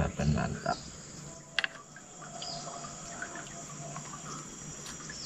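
Faint outdoor ambience with insects chirping, and two short clicks about a second and a half in.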